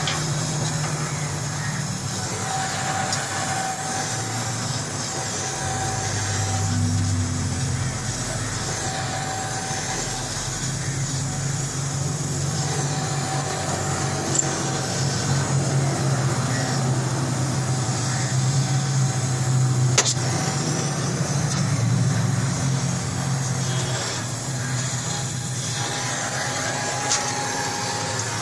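Steady hiss of a gas welding torch flame working on a car's exhaust silencer, over the low hum of an engine running. A single sharp click about two-thirds of the way through.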